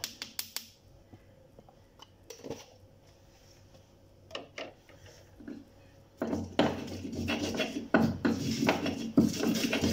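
Stone pestle (ulekan) grinding chilies and garlic in a stone mortar (cobek), a rough scraping and knocking that starts about six seconds in and keeps on with uneven strokes. Before it, a few light clicks of a spoon tapping seasoning off, then a couple of small knocks.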